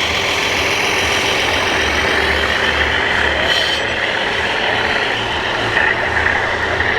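Radio-controlled scale construction trucks and machines running: the low pulsing rumble of their diesel-engine sound modules mixed with the high whine of their electric drive motors, over steady hall background noise.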